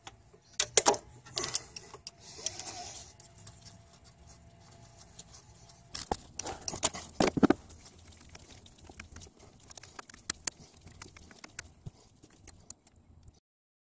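Irregular clicks and metallic clinks of a wrench and socket ratchet loosening the 10 mm nuts on a water pump housing, with a few louder clusters of clinks; cuts off suddenly near the end.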